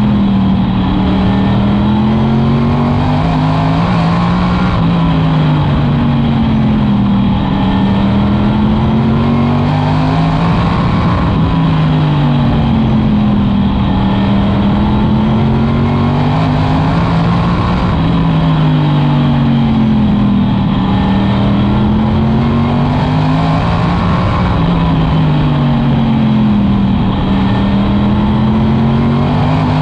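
Modified race cars running laps on a short oval, their engines loud throughout. The engine pitch dips and climbs again every four to five seconds as the cars come off and back on the throttle.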